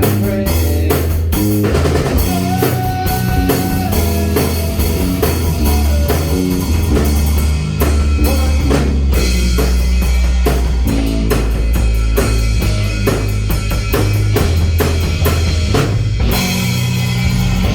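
Band music with a full drum kit (kick, snare and cymbals) playing a steady beat over sustained bass notes and other pitched instruments.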